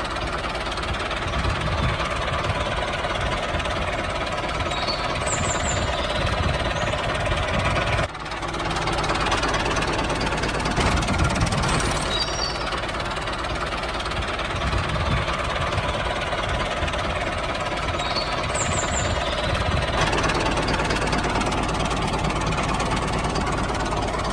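Diesel tractor engine running steadily with a rapid knocking clatter, dipping briefly about eight seconds in.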